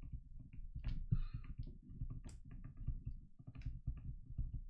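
Stylus tapping and scratching on a tablet screen during handwriting: a run of small, irregular clicks over a low rumble.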